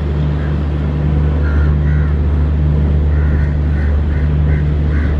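WAP-7 electric locomotive humming steadily at close range, its blowers and auxiliary machinery running. A few short high chirps sound over the hum.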